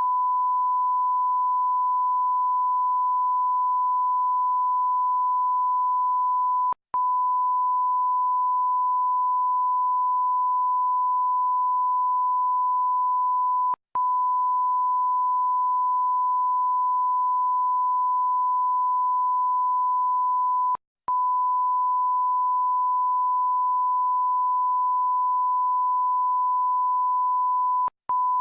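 Censor bleep sound effect: a steady pure tone of about 1 kHz, held at an even level and broken by four very short gaps roughly seven seconds apart.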